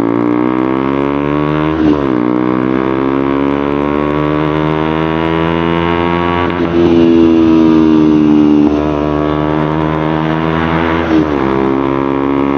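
KTM Duke 125's single-cylinder engine through a loud aftermarket Akrapovic full-system exhaust, pulling hard through the gears. The exhaust note climbs in pitch, drops sharply at an upshift about two seconds in, climbs and holds high, and drops again at another upshift near the end.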